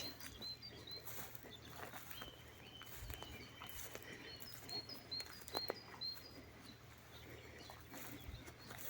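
A small songbird singing in woodland: runs of short, high, hooked notes repeated about three times a second, one run at the start and another about four seconds in, with a held thin note between them. A few soft knocks underneath.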